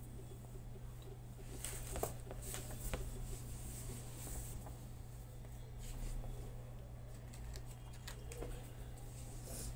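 Soft, scattered taps and handling noises as slices of fresh mango are laid into a stainless-steel cake tin, over a steady low hum.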